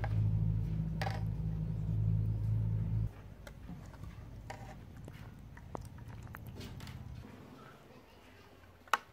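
Metal spoon clinking and scraping against a wok while shrimp and mushrooms are stirred, with a few scattered knocks. A steady low hum underneath cuts off suddenly about three seconds in, and there is one sharp knock near the end.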